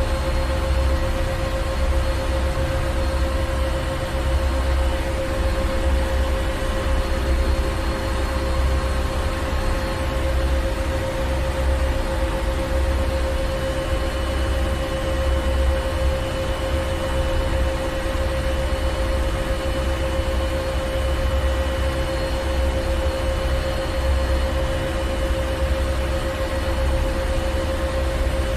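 Ship's engine room: heavy machinery running steadily, a deep low rumble that pulses gently under a constant drone and hiss.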